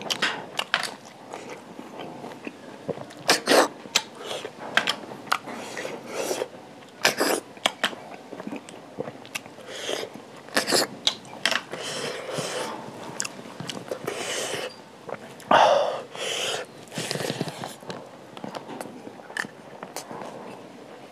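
Close-miked eating sounds of a person chewing snail curry and rice: irregular wet smacks and clicks of the mouth, with a few longer sucking sounds as snails are drawn from their shells.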